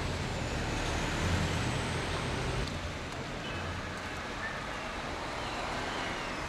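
Steady rumble and hiss of road traffic, a little quieter after the first few seconds.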